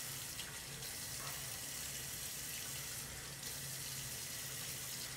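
Hot water from a bathroom faucet running steadily into a sink and over a revolver cylinder held in the stream.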